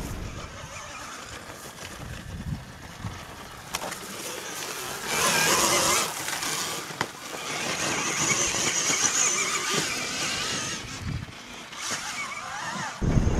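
KTM Freeride E-XC electric enduro motorcycle riding over grass, with no combustion engine note: a hiss of electric drivetrain and tyres that grows loudest as the bike passes close, about five to six seconds in. Near the end a short motor whine rises and falls in pitch.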